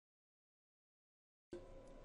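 Near silence: no sound at all, then a faint hum of room tone coming in during the last half second.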